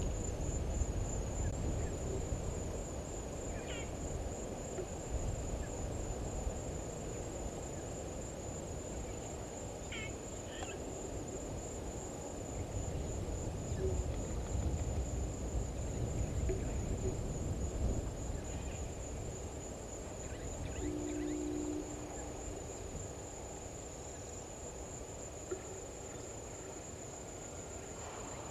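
Bushveld ambience: an insect's continuous high, evenly pulsing trill over a low rumble, with a few brief bird chirps and, about two-thirds of the way through, a short low call lasting about a second.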